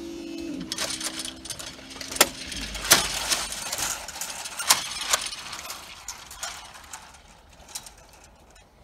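Level crossing barrier raising: a steady hum stops about half a second in, then irregular metallic clicks and clanks go on as the boom rises to upright, fading near the end.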